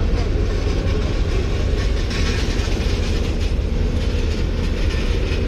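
Aircraft lavatory waste tank being dumped: rinse fluid rushing out through the service hose into the lav service truck, over a steady low mechanical rumble of ramp equipment. The churning rumble stays steady throughout.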